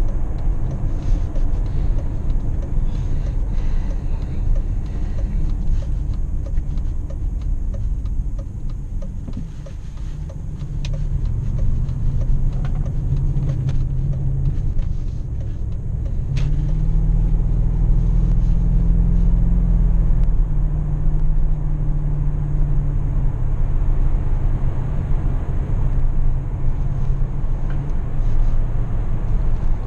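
Cabin sound of a 2005 BMW X5 4.4i's V8 engine and road noise while driving. It quietens briefly about nine seconds in. The engine note then climbs as the car accelerates, peaking around seventeen to twenty seconds in, and settles into a steady cruise.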